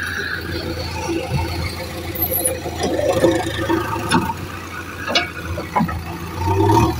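A JCB backhoe loader's diesel engine running steadily under load as the front loader works, with squeals and a few sharp clanks from the machine.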